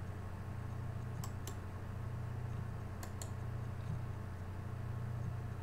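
Two quick pairs of computer clicks, about two seconds apart, over a steady low hum.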